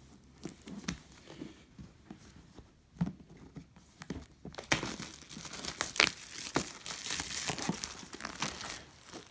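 Soft handling taps on a cardboard box, then from about halfway through a dense crinkling and tearing of the plastic shrink-wrap sealing it as it is pulled open.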